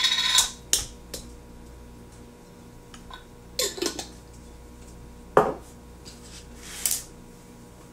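Spoon clinking and scraping in a jar, getting the last of the relish out: a clatter at the start, then a few separate clinks, a short scrape and a knock.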